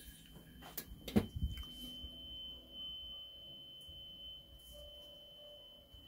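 A faint, steady, high-pitched test tone sounding during tape-deck testing, with a couple of sharp clicks about a second in.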